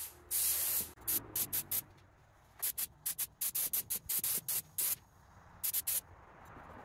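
Gravity-feed paint spray gun on compressor air, hissing in trigger bursts: one longer spray about half a second in, then a run of many short, quick puffs. It is spraying thinned flat black paint on a test panel to check the pattern.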